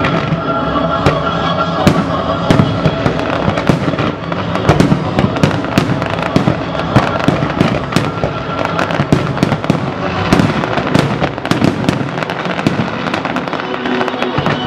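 Fireworks display firing: a dense, continuous run of bangs and crackles from bursting shells and ground effects, with music playing underneath.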